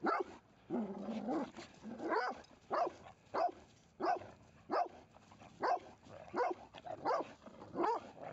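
Small dogs play-barking: a run of short, sharp barks, about one every two-thirds of a second, with a longer, lower growl-like call about a second in.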